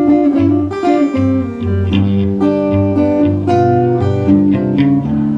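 Acoustic blues guitar playing between sung lines: picked and strummed notes over a steady, repeating bass.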